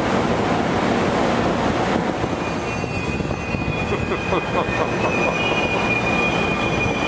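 Amtrak Superliner passenger cars rolling slowly past with a steady rumble. About two seconds in, a high, steady wheel squeal sets in and keeps going.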